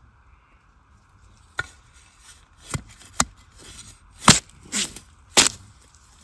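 A metal blade chopping into the soil at the base of a wild bamboo shoot to cut it free: about six irregular strikes starting about a second and a half in, some with a dull thud, the loudest a little past the middle.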